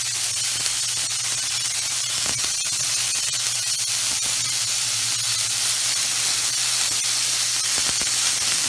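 Sliced sausage rounds sizzling in a hot frying pan: a steady high hiss dotted with small crackles and pops.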